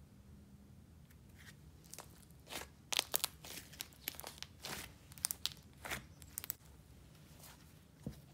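Thick icing-and-clay slime being squeezed and folded in the hands, giving a run of sharp little clicks and pops as air pockets break. It starts about two seconds in, is busiest around three seconds, thins out after six seconds, with one last pop near the end.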